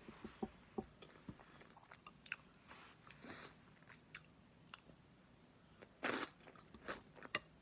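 A person chewing a mouthful of chili with crunchy corn chips, a string of faint crunches and clicks with a few louder crunches in the second half.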